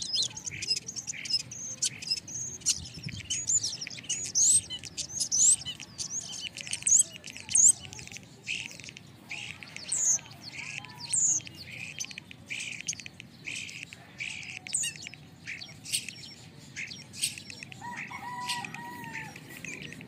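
A flock of small songbirds chattering at their roost: dense, overlapping chirps and whistles, many sweeping up or down in pitch.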